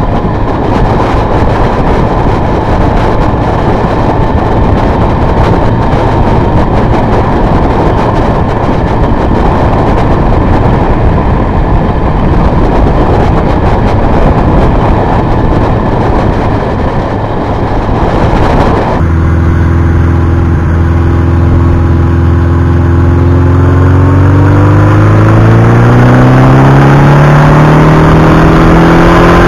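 A loud, even rush of wind and road noise on a moving motorcycle. Partway through it changes abruptly to a clear motorcycle engine note that climbs slowly and steadily as the bike accelerates.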